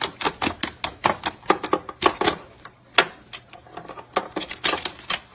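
Parrot's beak biting and chewing at a cord: an irregular run of sharp clicks and crunches, several a second.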